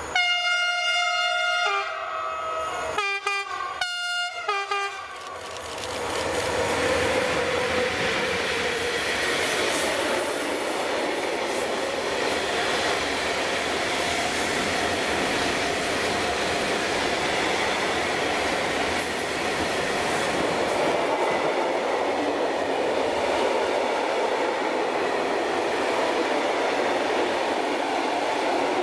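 Freight locomotive sounding its horn, one long blast and then two short ones, as it approaches. Then a train of tank wagons rolls past with a steady, loud noise of wheels on the rails.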